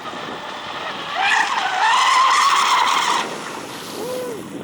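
Electric RC speedboat with an ABC 4082 1600KV brushless motor on 6S, running at speed: a high, wavering motor whine with the hiss of the hull on water. It swells loud about a second in, holds for about two seconds, then drops back.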